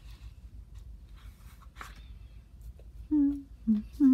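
Someone humming three short held notes, starting about three seconds in, the last one the longest and loudest. Before that, only faint ticks and rustles from paper being handled.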